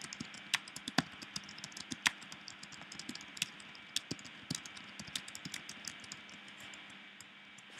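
Typing on a computer keyboard: a run of light, irregular key clicks, some louder than others, over a faint steady hiss.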